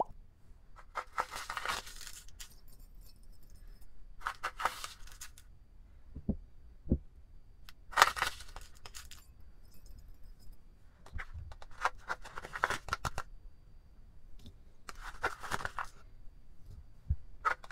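Granulated sugar and then salt poured and spooned from a plastic cup into glass bowls of coloured water. There are five separate grainy, hissing pours, each lasting a second or two, with a couple of small watery plops between them.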